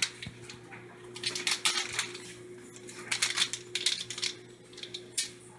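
Kitchen clatter: groups of light clinks and rattles of dishes and utensils being handled, over a faint steady hum.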